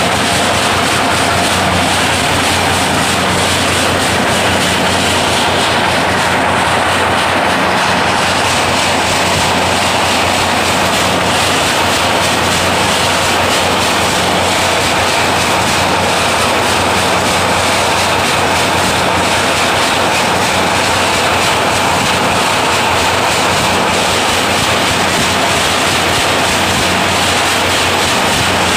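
Automatic wire nail making machine running: a loud, steady, dense mechanical clatter with no pauses or changes.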